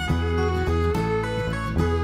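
Instrumental background music with plucked notes over a low bass.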